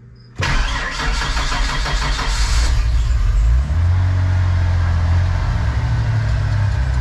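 A 1993 Ford F-150's 300 cubic-inch (4.9 L) inline-six starting up after sitting for a couple of days. It runs loud and busy at first, then about three and a half seconds in it settles into a steady, smooth idle.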